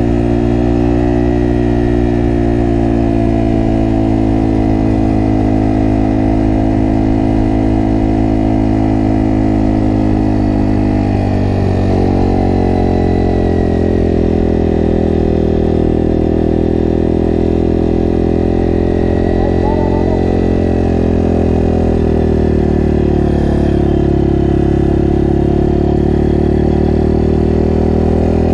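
Honda CRF230F's air-cooled single-cylinder four-stroke engine running under way as the dirt bike is ridden. The engine holds a steady note, drops in pitch about twelve seconds in and climbs again, with another brief dip near the end.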